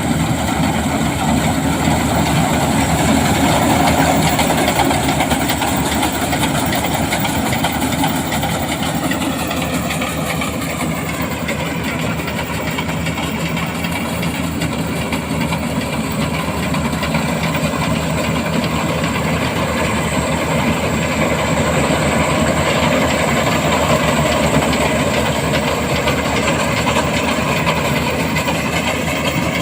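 BIMO Maxxi Extreme rice combine harvester's engine and machinery running steadily. Its pitch sags for a couple of seconds around ten seconds in, then recovers.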